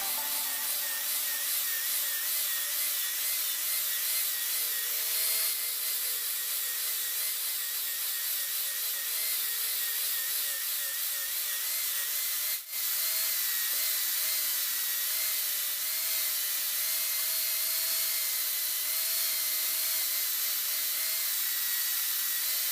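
Power grinder working steel: a steady hiss of abrasion over a slightly wavering motor whine, broken by a short dip about halfway through.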